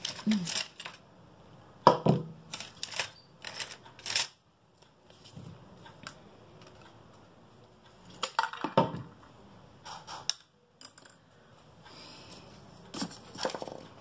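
A wooden toothpick being cut shorter: sharp cracking and crunching clicks, the loudest about two seconds in, among scattered clicks and knocks of small handling on a work table.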